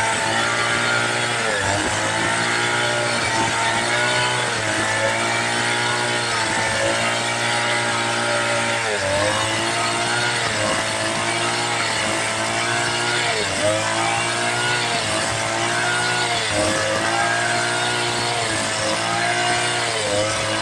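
Two-stroke chainsaw running under load while ripping teak into planks. The engine pitch sags and recovers again every second or two as the chain bites into the wood.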